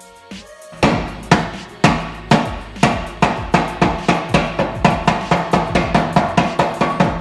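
Background music with a drum build-up: kick-drum hits start about a second in, at roughly two a second, and speed up to about four a second over sustained backing tones.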